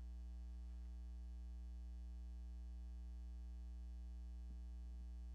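Steady low electrical mains hum with its overtones, the audio feed otherwise quiet.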